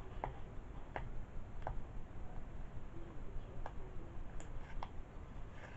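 Light clicks and ticks at irregular intervals, about six of them, from hands handling a shirt and its price tags.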